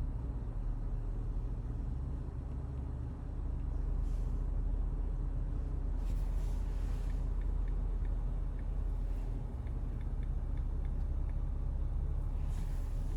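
Steady low rumble of a car being driven, heard from inside the cabin, with two brief rushing swells.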